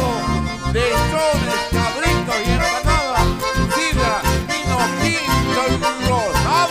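Live band music led by two accordions over acoustic guitars, with a steady low beat.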